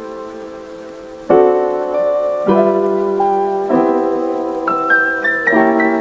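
Background music: slow piano chords, each held and fading, with a new chord struck every one to two seconds.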